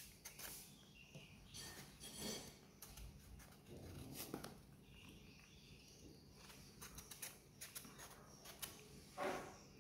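Faint scraping and shaving of a kitchen knife peeling the skin off a green mango: a string of small scrapes and clicks, with a couple of slightly louder strokes.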